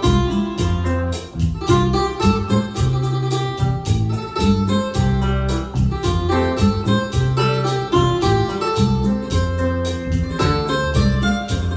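Instrumental music: a keyboard melody over a steady beat and a moving bass line.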